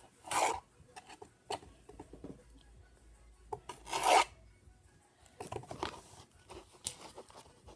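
Spoon scraping and stirring slime in a bowl, with two louder rasping scrapes about half a second and four seconds in and small clicks between.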